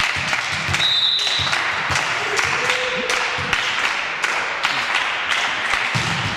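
A basketball bouncing again and again on a hard court in a gym, over a steady hall din, with a brief high squeak about a second in.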